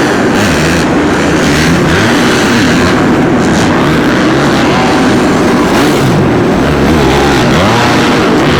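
Several four-stroke supercross dirt bikes running on the track together, their engines revving up and down in pitch as the riders shift and throttle through the course.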